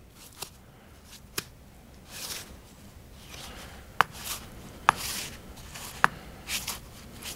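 Hammer tapping a handled splitting iron (Sprengeisen) set on a paving stone: a few sharp, light metallic taps at irregular intervals, the three clearest in the second half. Soft scuffing of stone and sand comes between the taps.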